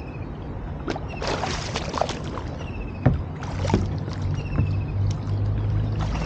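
Water splashing and sloshing around a capsized kayak as the paddler hangs upside down and works at a roll, with a few sharp knocks against the hull. It splashes louder near the end as he surfaces beside the boat.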